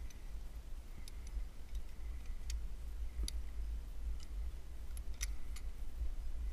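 Climbing gear clinking as a climber clips himself to the top anchor: scattered, irregular sharp metallic clicks of carabiners and quickdraws, with a steady low rumble underneath.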